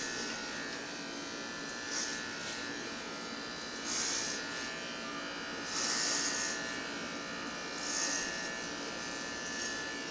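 Remington electric hair clipper with a number four guard, running steadily as it cuts hair, with a louder hiss about every two seconds as each stroke is pushed through the hair.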